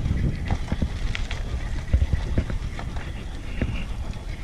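Cargo bicycle rolling along a gravel road: tyres crunching, with irregular clicks and rattles over a steady low rumble.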